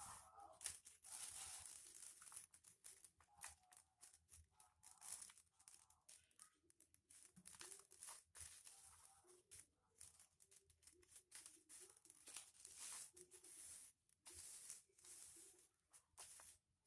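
Faint crinkling and rustling of aluminium-foil-covered paper being folded and creased by hand, in short, irregular crackles.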